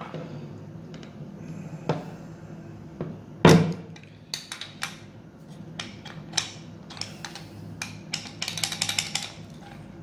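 Parts of an antique brass coffee grinder being handled and worked on a wooden bench: scattered clicks and taps, one loud knock about three and a half seconds in, and a quick run of clicks near the end.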